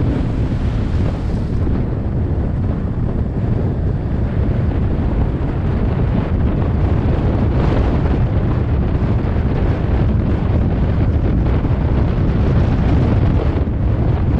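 Wind buffeting the microphone: a loud, steady, rumbling rush of wind noise.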